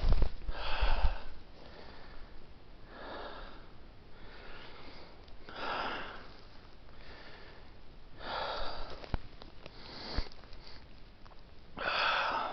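A hiker breathing hard during a steep uphill climb: a heavy breath every two to three seconds, with a low rumble at the very start.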